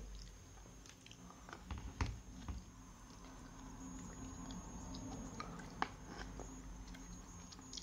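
Faint chewing of sour candy, with small clicks and taps from handling the mug; a sharper tap comes about two seconds in and another near six seconds.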